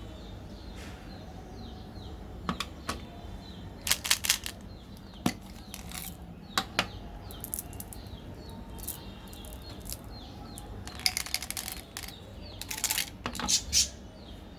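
A series of short clicks and crinkling rustles from something being handled, bunched together about a third of the way in and again near the end, with faint bird chirps behind.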